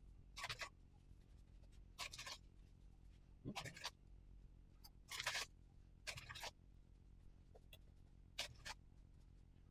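Hands rubbing coarse salt into raw pork strips and setting them on a wooden cutting board: about six short, faint gritty scrapes and rustles, spaced a second or two apart.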